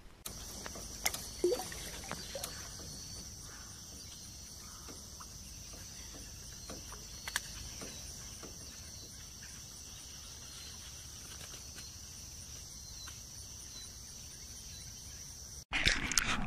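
A steady chorus of insects: an even, high-pitched buzz, broken by a few faint clicks. Near the end it stops abruptly and a louder rushing noise takes over.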